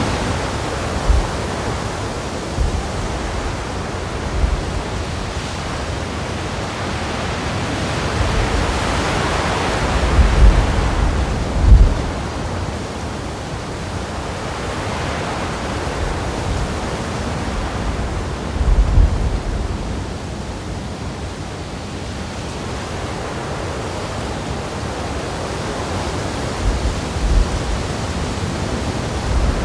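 Wind blowing close to the microphone, a steady rush that swells and eases in gusts. Short low buffets come with the stronger gusts, the loudest about twelve seconds in.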